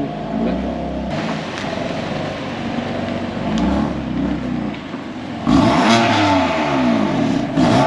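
BMW M4's twin-turbo straight-six engine running as the car is moved at low speed, with louder blips of revs rising and falling about five and a half seconds in and again near the end.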